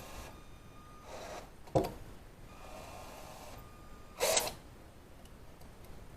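Tool handling during hand work on a broken bolt: a sharp click a little under two seconds in, then a short rasping burst about four seconds in, with faint handling noise between.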